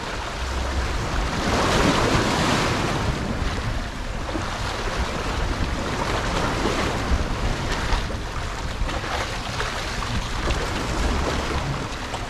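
Sea waves surging and washing against a rocky shoreline, with wind buffeting the microphone; one wave swells loudest about two seconds in.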